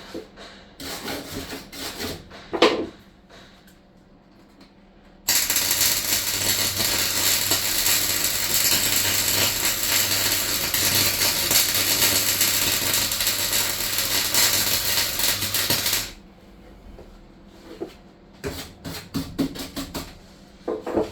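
Electric welder laying a continuous bead on a van floor for about ten seconds, a steady crackling hiss over a low mains hum. Before and after it come clattering tool handling and knocks, with one sharp knock early on.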